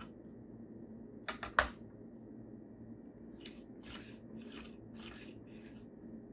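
Handling sounds of a 1:18 scale diecast Nissan GT-R model: three small clicks of its opening parts about a second and a half in, the last a sharp snap, then about five short swishes as the model is pushed back and forth on the table on its rubber tyres.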